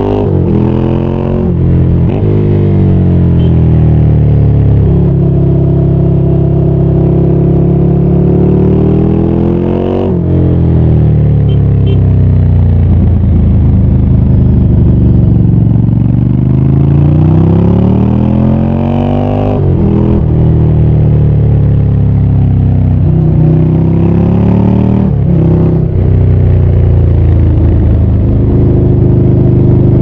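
Ducati Scrambler 800's air-cooled L-twin engine riding along, its pitch climbing under throttle and dropping sharply at gear changes. It slows with a falling note in the middle, then pulls hard again with a quick upshift, and holds a steady cruise with another shift near the end.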